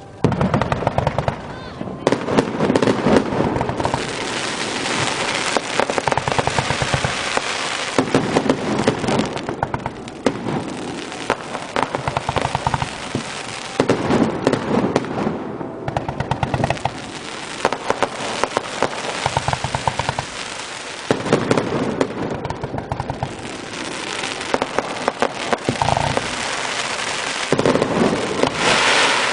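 Fireworks display going off continuously: repeated sharp shell bursts over dense crackling from crackle-effect stars.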